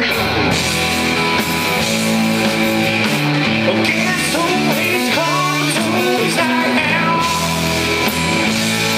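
Live rock band playing an instrumental passage on electric guitars, bass and drums, with a bending lead melody over it in the middle.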